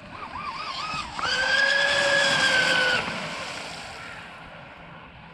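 High-pitched electric whine of a twin-motor TFL Zonda RC speedboat's brushless motors, each on 6S, throttled up. The pitch warbles up and down for about a second, then holds a loud steady whine at speed for about two seconds before the throttle drops and a fading hiss of water remains.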